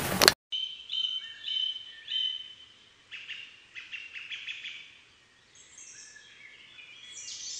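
Wild birds chirping and calling: many short whistled notes at shifting pitches, thinning out about five seconds in, then higher, thinner calls near the end. A brief louder sound cuts off abruptly just before the birdsong begins.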